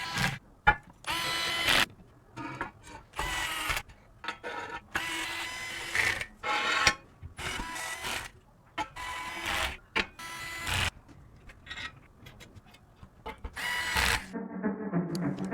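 Small electric screwdriver whirring in about ten short runs, each half a second to a second long, with clicks between them as screws are driven into the PC frame and parts. Low, bowed-string-like background music comes in near the end.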